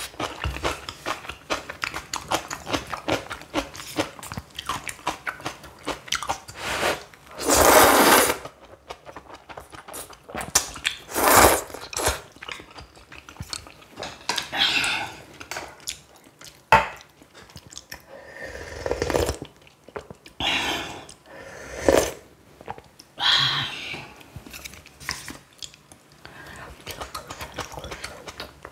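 Close-miked eating of kalguksu noodles and spicy napa cabbage kimchi: steady crunchy chewing with wet mouth clicks, broken by a few louder, longer slurps about a quarter, two fifths, two thirds and four fifths of the way through.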